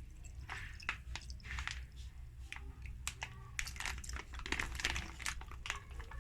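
A utensil scraping and clicking irregularly against a saucepan while béchamel sauce is stirred continuously.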